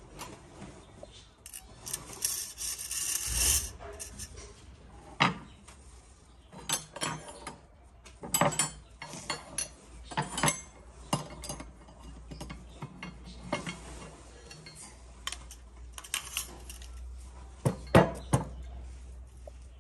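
Metal parts of a Kral A12 shotgun being handled and fitted together during assembly: a scraping, sliding sound about two seconds in, then scattered sharp metallic clicks and clacks, the loudest two close together near the end.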